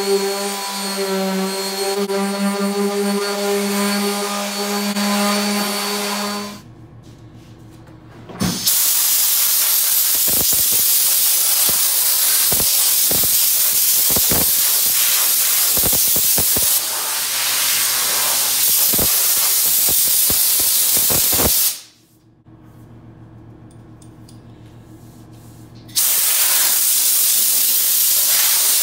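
A 5-inch orbital sander runs with a steady hum and stops about six seconds in. After a short pause, a compressed-air blow gun hisses in long blasts to clear sanding dust off the walnut board: one blast of about thirteen seconds, a pause of about four seconds, then a second blast near the end.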